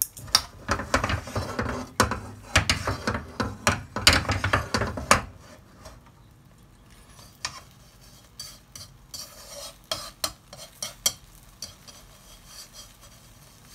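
Scrambled eggs cooking in a nonstick pan: for about the first five seconds the pan and utensils scrape and clatter as the eggs are worked, then only a faint sizzle with scattered light clicks.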